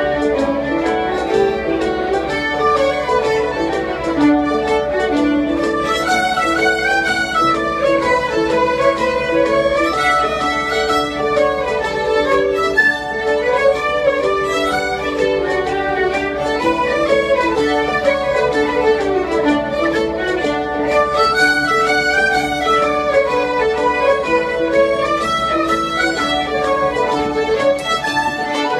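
A group of fiddles playing a tune together, with a steady low hum underneath.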